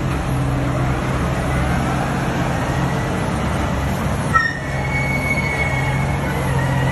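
Caterpillar off-highway haul truck running, a steady low engine drone with heavy rumbling noise. About four and a half seconds in there is a short sharp knock, and a thin high squeal then holds to the end.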